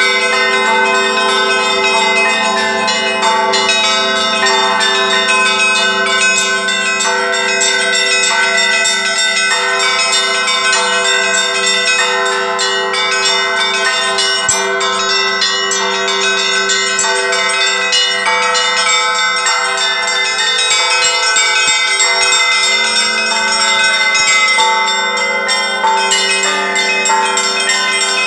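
Russian Orthodox church bells ringing, many bells of different pitches struck in quick succession so that their tones overlap into a continuous, dense peal.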